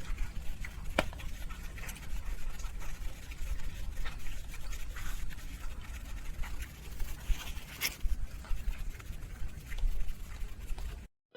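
Rainwater running and pattering, with scattered sharp drips and splashes over a continuous rushing noise; it cuts off suddenly near the end.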